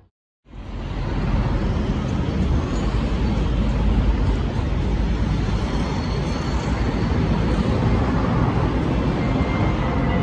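Steady road traffic noise from vehicles on a highway, coming in after a brief silence.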